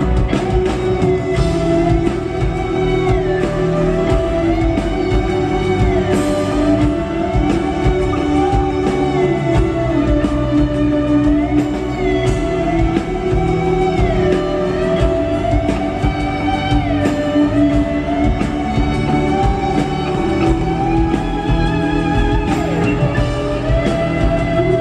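Live rock band music: an electric guitar solo, its held notes sliding up and down between pitches, over sustained keyboard chords and a steady bass and drum backing.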